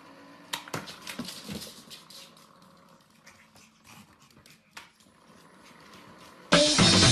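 A small dog playing at a plastic automatic ball launcher: a cluster of sharp knocks and clicks in the first two seconds, then a few scattered softer clicks, with faint dog sounds. Loud music starts abruptly near the end.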